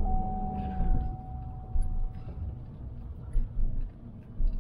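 Pickup truck on the move, heard from inside the cab: a steady low engine and road rumble with a few dull thumps. A thin steady whine fades out about halfway through.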